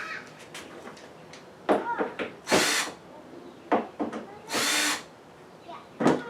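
A small power tool run in two short bursts of about half a second each, with sharp knocks and clatter of parts being handled between them.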